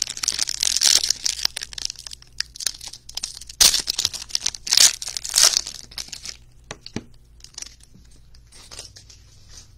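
A silver foil wrapper being torn open and crumpled by hand, with irregular crinkling and tearing. The loudest crackles come between about three and a half and five and a half seconds in, then it tapers off to a few scattered small crackles.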